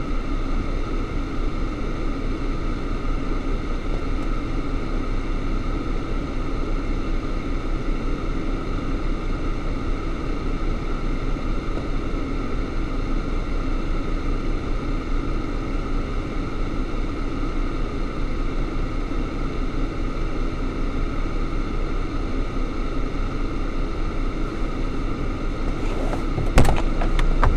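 A car engine idling steadily, heard from inside the cabin, with one sharp knock near the end.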